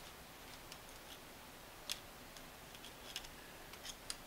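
Needle-nose pliers making scattered small clicks and ticks against the metal parts inside a Singer sewing-machine foot controller. The sharpest click comes about two seconds in, with a few more close together near the end.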